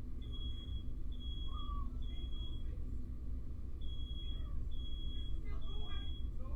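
Smoke alarm sounding its three-beep evacuation pattern: short, high, single-pitched beeps in groups of three, with a pause between groups. It was set off by firework smoke filling the room.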